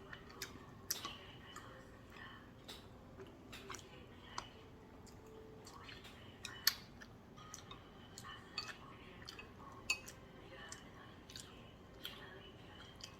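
Close-miked eating: irregular soft clicks and wet chewing sounds, with faint speech from a TV underneath.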